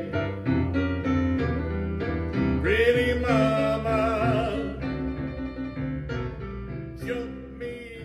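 Boogie-woogie blues piano with a singer, played back through Martin Logan SL3 electrostatic speakers driven by a Hafler XL280 MOSFET amplifier and Dynaco PAS-4 tube preamp, picked up by microphones in the room. The song is ending: a held sung phrase about three seconds in and another near the end, then the music dies away.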